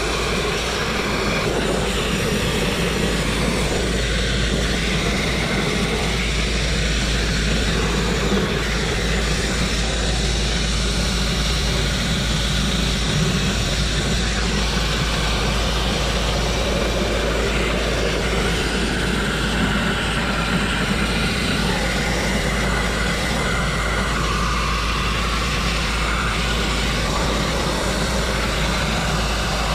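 Grit-blasting nozzle firing continuously: a steady, loud hiss of compressed air and abrasive grit striking rusty, painted steel on a truck's axle and suspension.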